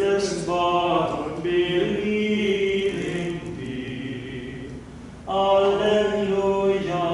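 A single voice chanting unaccompanied, holding long notes, with a short pause about four and a half seconds in before the chant resumes.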